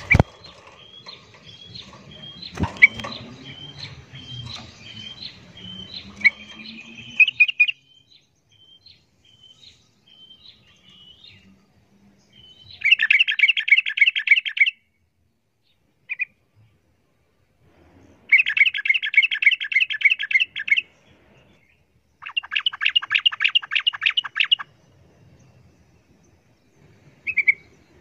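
Yellow-vented bulbul calling: a run of repeated sharp chirps for the first seven seconds or so, then three bursts of fast chattering song, each about two seconds long. The rapid chatter is the 'ropel' delivery of a bulbul in fighting mood.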